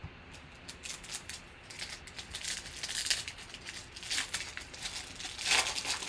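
Foil wrapper of a Panini Certified football card pack crinkling as it is handled and torn open, in irregular crackles that get louder, the loudest rip about five and a half seconds in.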